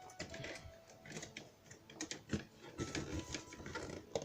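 Faint, irregular clicks, scrapes and rustles of a cardboard box being cut and opened with a knife.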